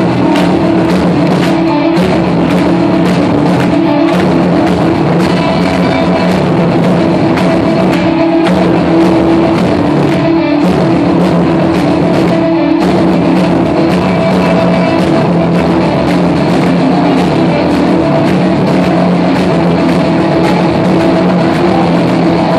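A hardcore punk band playing live and loud, heard from the audience through the venue's sound system: electric guitars holding chords over a steady, evenly hit drum beat.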